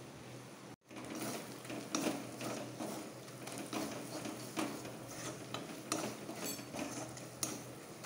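Metal spatula stirring and scraping frying onion-and-spice masala around an aluminium kadai, with irregular scrapes and clicks of metal against the pan.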